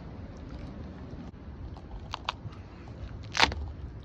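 A spaghetti squash being torn apart by hand: two small cracks a little after two seconds in, then a louder crunching crack of the rind and flesh splitting about three and a half seconds in.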